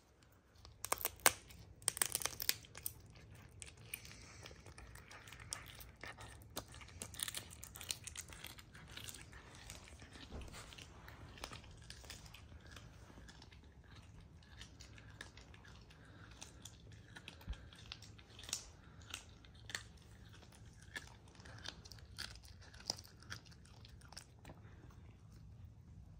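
Serval chewing raw chicken wings: a run of irregular sharp crunches and bites, loudest and thickest in the first few seconds, then sparser.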